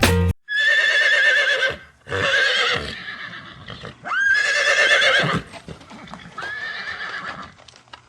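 Horse whinnying: four separate high-pitched, quavering calls about a second long each, the last one fainter. The tail of some music cuts off just at the start.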